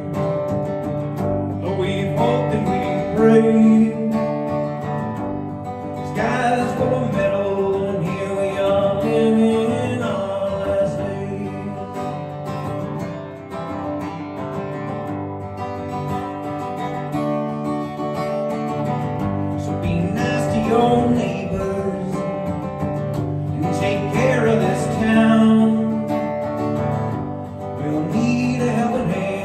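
Martin DSS-17 acoustic guitar strummed and amplified through effects pedals and a PA system, with a man singing in stretches and a guitar-only passage around the middle.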